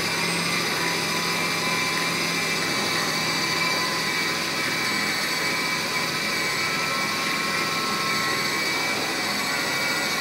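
Electric food processor motor running steadily, a constant whine with several high tones, as its blade grinds chicken breast, onion and fine bulgur into köfte mixture.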